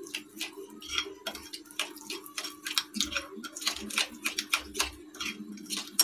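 Fingers mixing flour and oil into a paste in a glass bowl: quick, irregular clicks and taps against the glass, several a second, over a steady low hum.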